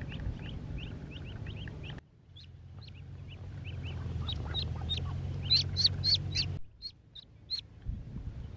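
A flock of ducklings peeping: many short, high, rising peeps, several a second. They are loudest about five to six seconds in, and the sound drops off abruptly twice.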